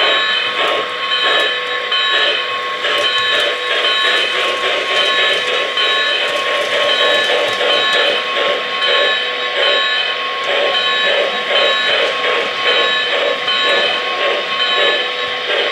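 O-scale three-rail model trains running: a model steam locomotive's electronic sound system chuffing in a steady rhythm of about three beats a second, over a steady whine, with the wheels of passing freight cars clicking on the track.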